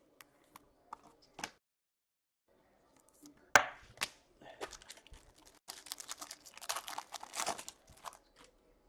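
Handling of trading cards and a foil card pack: a few faint clicks, two sharp snaps about three and a half and four seconds in, then crinkling and tearing of the wrapper for about two seconds near the end.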